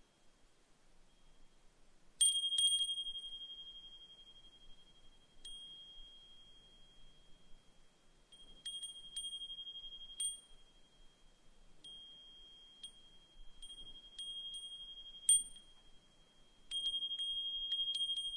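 Brass suzumushi wind chime (Japanese furin) ringing in the breeze: its clapper strikes it at irregular moments, each clink renewing one clear, high, lingering tone. The strikes come singly and in small clusters, the loudest about fifteen seconds in.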